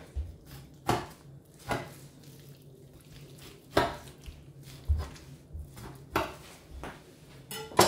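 A knife scoring a raw pork shoulder in an enamel roasting tin: irregular sharp knocks and clicks, about one every second or so, as the blade and the handled joint strike the tin.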